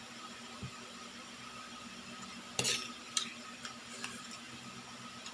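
Eating sounds during a meal: a short scrape of food or utensil against the plate a little past halfway, followed by a few light clicks, over a steady background hum.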